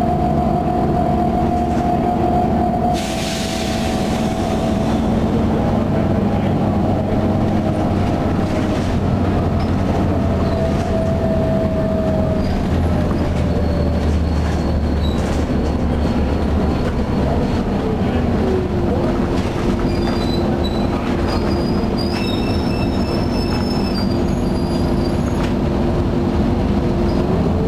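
1996 Nova Bus RTS with a Detroit Diesel Series 50 engine and Allison transmission, heard from inside the cabin while under way. Its drivetrain whine falls slowly in pitch, holds steady, then rises again near the end, over a low engine rumble. There is a short hiss about three seconds in.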